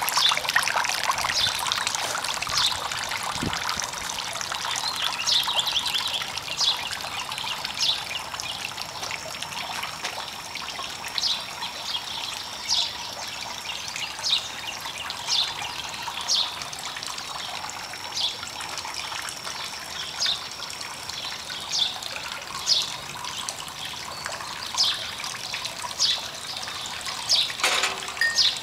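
Water trickling and splashing down the tiers of a garden fountain, a steady rush, with a bird giving short high chirps every second or two.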